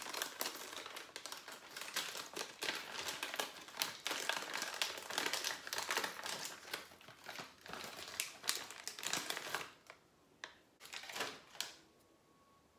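Crinkly plastic snack-bag packaging being handled and pulled open, with dense crackling and crinkling. The crinkling stops about ten seconds in, followed by a few short crackles.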